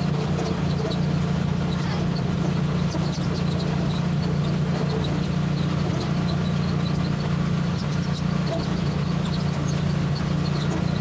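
Small tractor's engine running steadily with a loud, even hum.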